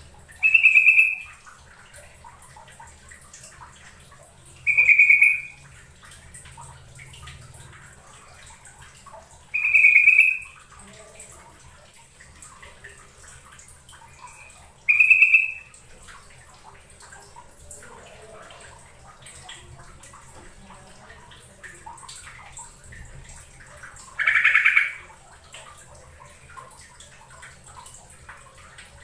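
Yellow-vented bulbul (trucukan) calling: five short, loud calls spaced several seconds apart, the last one lower and rougher than the others, over a faint steady trickle of water.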